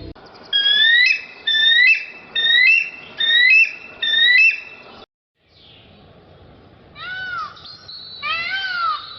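High-pitched animal calls: a run of short upward-sweeping calls, about eight in quick pairs, then after a brief silence two longer calls that rise and fall near the end.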